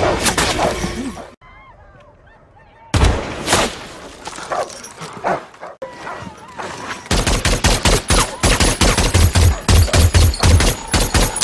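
Film battle soundtrack of gunfire: a sudden loud shot about three seconds in after a brief lull, then rapid automatic rifle fire from about seven seconds in.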